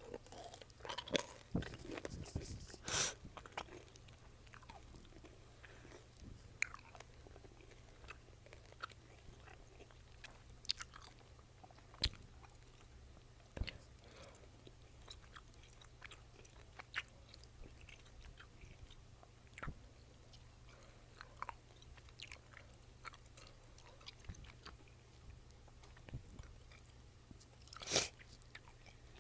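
Chewing gum worked close to the microphone: irregular wet smacks and sharp mouth pops. A cluster of them comes in the first few seconds and a single loud pop near the end.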